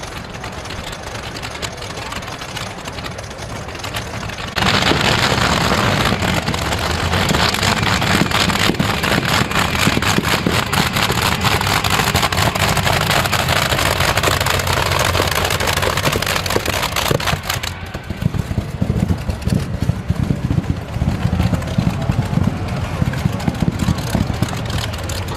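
Competition pulling tractor with two Rolls-Royce Griffon V12 aero engines running under load, jumping suddenly to full power about five seconds in. It stays loud for about thirteen seconds, then drops back to a lower, uneven rumble.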